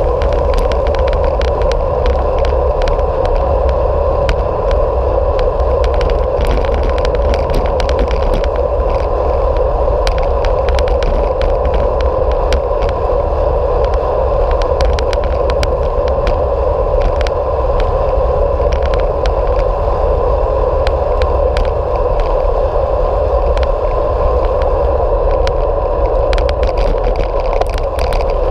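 Bicycle riding on tarmac, heard from a camera mounted on the bike: a steady tyre drone over a deep wind rumble, with many small clicks and rattles scattered through it.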